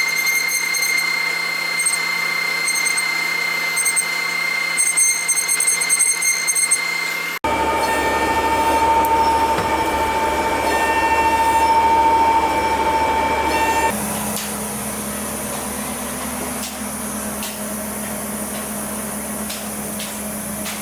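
CNC router spindle whining steadily while carving wood. The pitch of the whine drops abruptly twice, about seven and fourteen seconds in.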